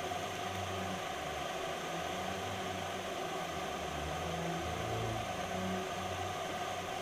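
Steady hiss with a low hum that wavers in pitch.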